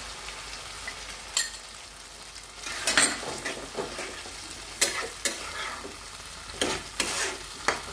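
Onions and capsicum in sauce sizzling in a non-stick kadai as cornflour slurry is poured in and stirred. A steel spatula scrapes and knocks against the pan about seven times.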